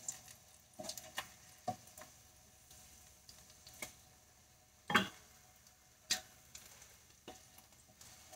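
A slotted kitchen spatula and tongs knocking and scraping against a nonstick frying pan while fried Spam slices are lifted out of the oil. There are a few scattered light clicks, with a sharper knock about five seconds in.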